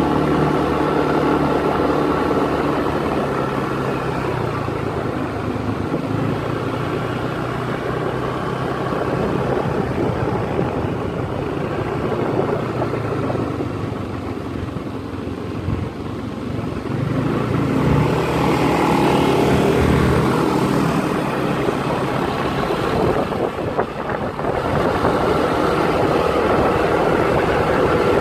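Vehicle engine running steadily with road noise, its note changing a couple of times as the speed changes.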